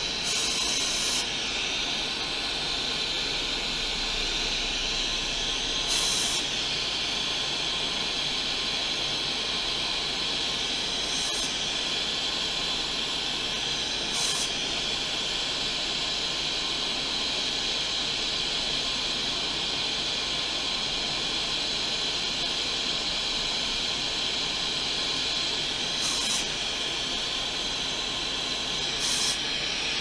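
Six short hissing blasts from a can of compressed air, the first about a second long, blowing molten solder out of the graphics card's power-connector through-holes to clear them for a new port. They sound over a steady background hiss.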